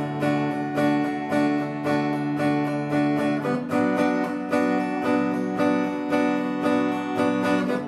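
Acoustic guitar strummed in a steady rhythm, changing chord about three and a half seconds in.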